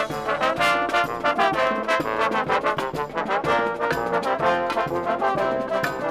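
Brass band music: many horns playing a lively tune of quick, shifting notes.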